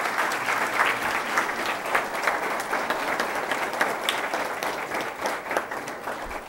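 Large seated audience applauding, a dense patter of many hands clapping that slowly fades toward the end.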